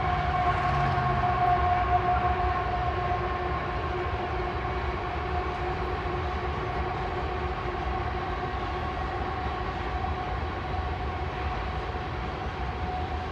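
Loaded coal train rolling past: a steady rumble of the cars on the rails with a sustained whining tone over it, a little louder in the first couple of seconds.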